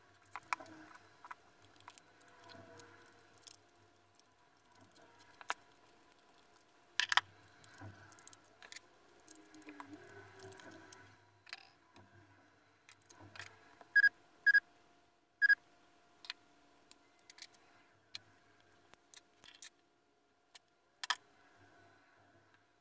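Clicks, taps and light rattles of small plastic and metal parts of a diecast Ferrari 288 GTO model as it is taken apart by hand and the pieces are set down on a tabletop. Three loud, sharp ringing clicks come close together a little past the middle.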